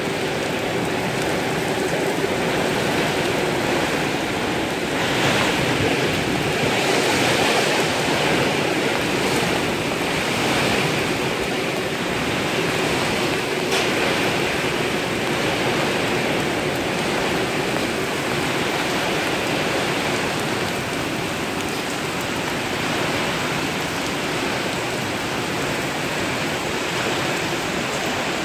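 Heavy downpour of rain with wind, a steady loud rushing hiss of rain pouring onto a paved road and trees, swelling a little in gusts about five to nine seconds in.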